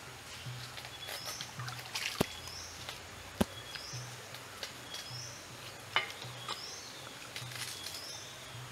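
Streamside forest ambience: a short rising chirp repeats about once a second over a steady hiss, with a low pulse in the same rhythm. A few sharp clicks stand out.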